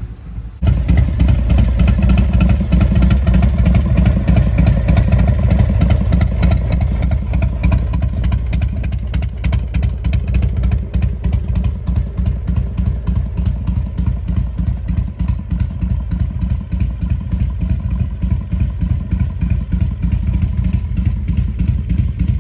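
Harley-Davidson Softail Bad Boy's V-twin engine idling, with a steady, rapid beat of exhaust pulses. It comes in sharply about half a second in and runs a little quieter in the second half.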